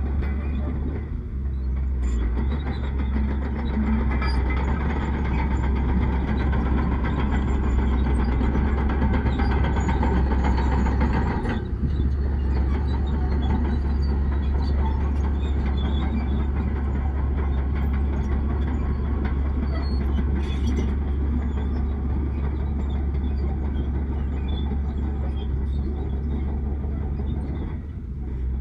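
Heavy diesel earthmoving machinery working steadily, a deep engine rumble with clattering and scraping noise over it. The sound dips briefly about a second in, around the middle and near the end.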